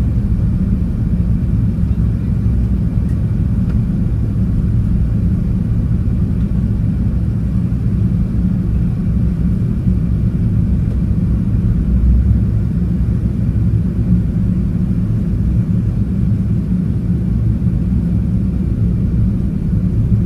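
Airbus A380 cabin noise in the climb after takeoff, heard from a window seat on the upper deck: a steady low rumble of the jet engines and rushing air.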